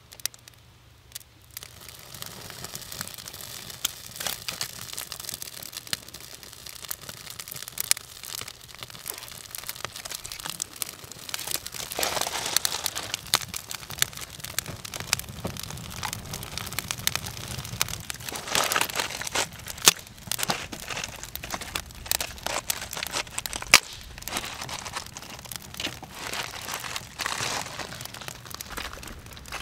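Small fire of birch bark and kindling crackling as it catches, with many sharp pops and snaps, starting about a second and a half in and swelling louder a couple of times.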